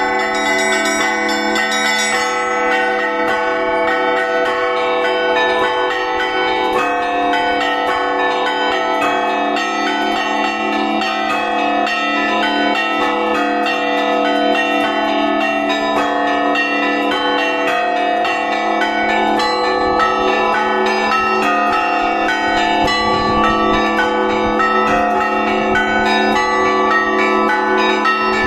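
Russian church bells rung by hand in a continuous, dense pattern of many overlapping strikes, the low bells sounding steadily beneath quick, repeated strikes on the higher bells.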